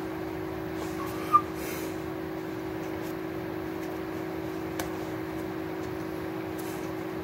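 A steady low hum over room noise, with one short sharp blip a little over a second in and a faint click near five seconds.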